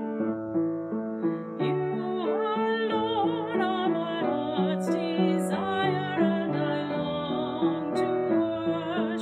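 Slow piano music with held chords that change every second or so, and a wavering melody line above them.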